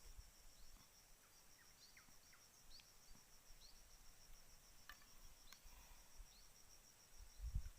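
Faint insect chirping, cricket-like: a high-pitched, fast, evenly pulsed trill that runs on steadily, with a few short faint chirps scattered through. Low thumps start near the end.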